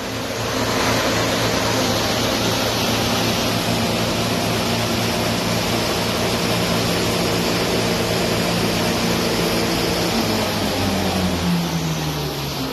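Electric chaff cutter running under load, chopping green fodder stalks and blowing the chopped pieces out: a steady motor hum under a loud rushing hiss. Near the end the hum falls in pitch as the machine slows.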